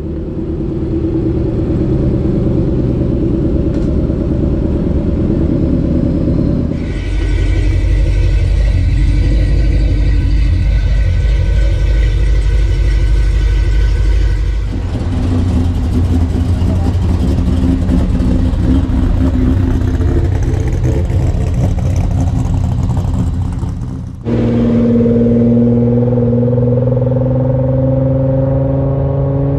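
Car engines and exhausts running and revving, several different cars one after another with abrupt cuts between them. In the last part, an engine's pitch rises as it accelerates.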